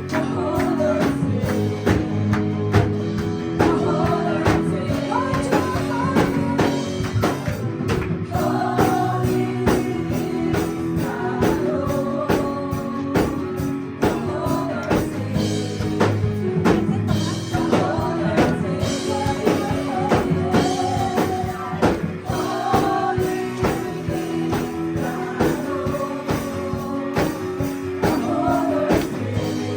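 Worship band playing an upbeat praise song: a steady drum beat and band accompaniment under a sung melody.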